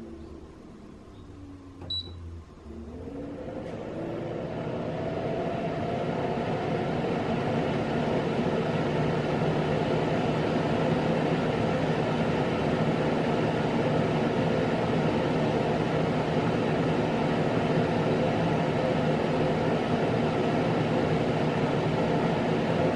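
Sharp FU-T51CX air purifier: a short control-panel beep about two seconds in, then its fan spins up with a rising whine over a few seconds and settles into a steady, loud rush of air.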